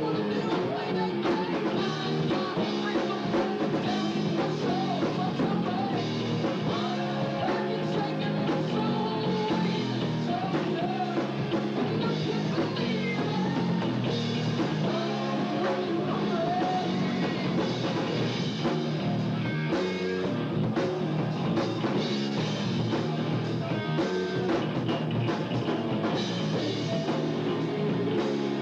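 Live rock band playing a song: electric guitars and a drum kit with a singer's vocal over them, heard through a camcorder's built-in microphone.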